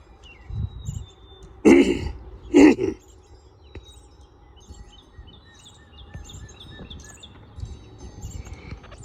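A person coughs twice, just under a second apart, about two seconds in, over the chirping of small birds.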